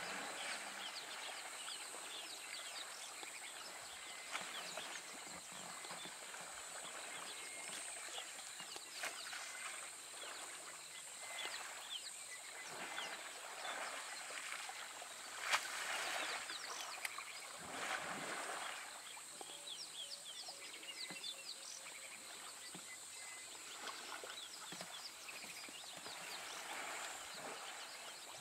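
Water splashing and sloshing as two African elephant bulls wallow and play in a waterhole, with louder splashes about halfway through as one sprays water with its trunk. Small birds chirp throughout.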